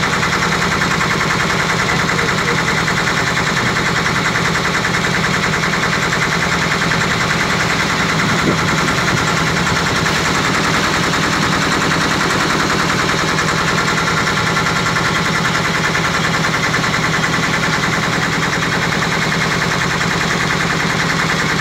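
A small tour boat's engine running steadily under way, a rapid, even chugging.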